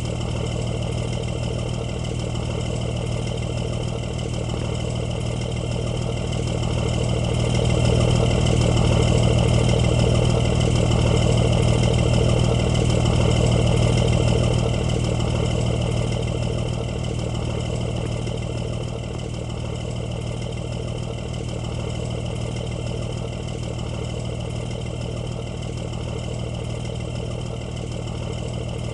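Bus engine running steadily, swelling louder for several seconds in the middle and then settling back.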